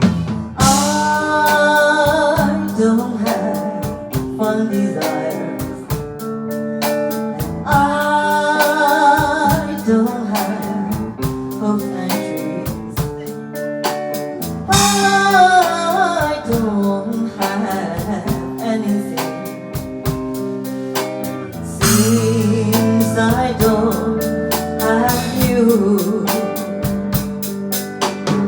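Music: a slow ballad passage with guitar and a steady drum beat, with a wavering lead melody in phrases between the sung lines.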